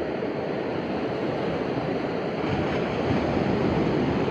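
Ocean surf making a steady rushing wash that grows a little louder about halfway through.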